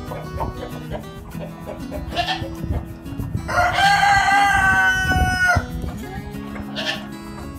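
A rooster crows once, a single long crow of about two seconds near the middle, over hens clucking and background music.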